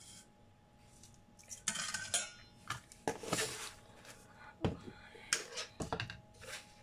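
Metal spoon stirring and scraping in a stainless steel mixing bowl of liquid chili dressing, with a run of sharp clinks against the bowl starting about a second and a half in.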